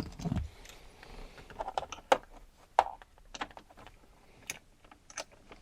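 Scattered, irregular clicks and light knocks, with a low thump about a quarter of a second in.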